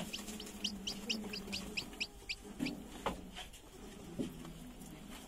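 Newly hatched desi chicks peeping: a quick run of short high peeps, each falling in pitch, several a second, dying away about halfway through, over a hen's low clucking. A couple of sharp clicks later on.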